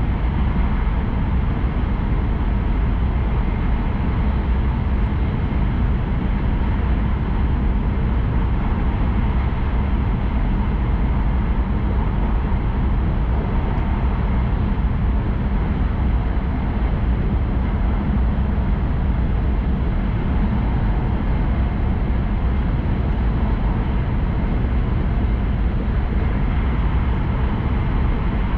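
Tohoku Shinkansen train running steadily, a constant low rumble and rushing noise heard inside the passenger cabin.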